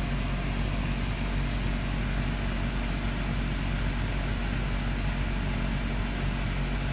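Steady low mechanical hum and rumble under an even hiss, unchanging throughout.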